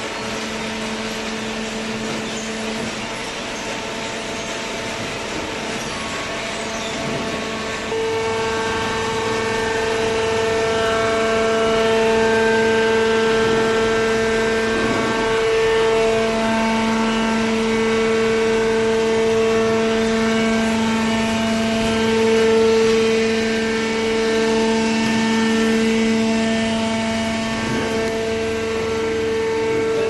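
Hydraulic waste-paper baler running with its feed conveyor: a steady machine hum and whine made of several held tones, which gets louder about eight seconds in.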